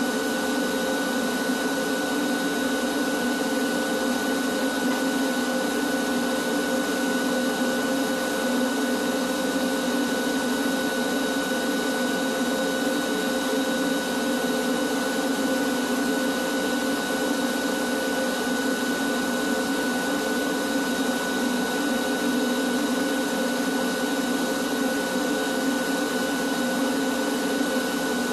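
Canister shop vacuum running steadily with a constant high whine as its hose is drawn along the warehouse ceiling trusses, sucking up dust.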